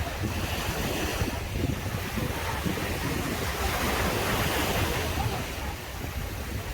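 Sea waves breaking and washing up the beach, a steady surf that swells louder for a second or two in the middle, with wind rumbling on the microphone.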